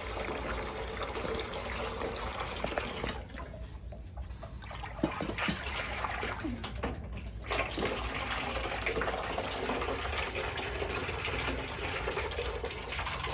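Water running and splashing, with brief lulls in the flow about three and seven seconds in.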